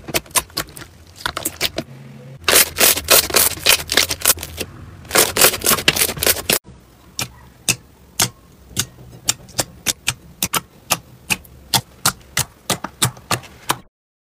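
Hands pressing and squishing slime, its trapped air popping in a stream of sharp clicks that run together into dense crackling in the first half. Then fingers poking a softer slime give single pops about three a second.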